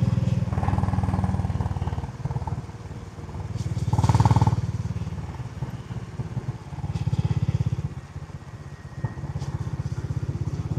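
Honda CB350 Highness with its stock exhaust, the 348 cc air-cooled single-cylinder engine running under way. Its note swells with throttle about four seconds in and again around seven seconds, and eases off between.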